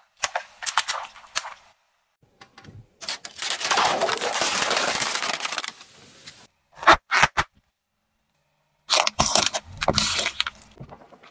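Plastic objects being crushed under a car tyre: a cluster of sharp cracks and pops, a few seconds of steady rushing noise in the middle, two or three very loud single cracks, then dense crackling near the end.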